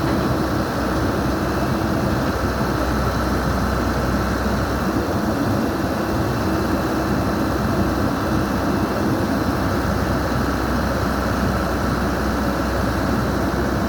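Backhoe's diesel engine running steadily, a low, even drone with no change in speed.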